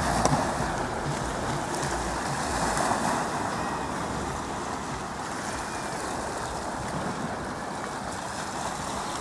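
Small waves lapping and washing over a shingle beach, with wind buffeting the microphone, most in the first few seconds.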